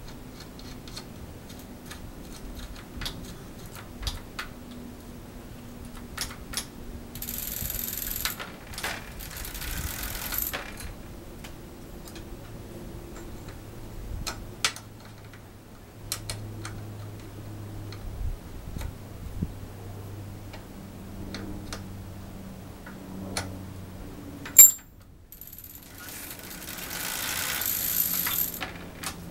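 Light metallic clicks and clinks of hand work on the rear hub fittings of an electric-assist bicycle, with one sharp loud clack late on. Near the end the pedal is turned by hand and the rear wheel spins, with a rushing whirr and the chain and hub ticking.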